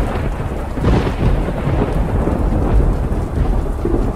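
Storm sound effect: steady heavy rain with low thunder rumbling.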